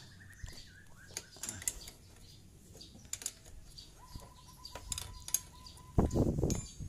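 Scattered light metallic clicks and taps from a T-handle socket wrench working a cylinder head bolt loose on a small motorcycle engine. A loud short vocal sound comes near the end.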